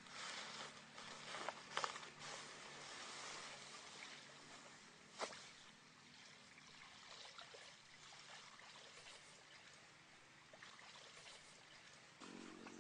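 Faint splashing and trickling of shallow stream water as a bundle of cut banana trunks is pushed in, with a few knocks about two seconds in and a sharp click about five seconds in.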